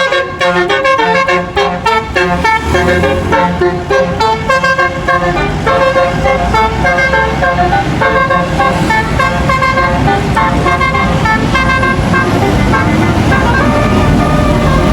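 Tour bus 'telolet basuri' multi-tone horn playing a tune of quick stepped notes over the bus engine; the tune stops about twelve seconds in and the engine and road noise grow louder.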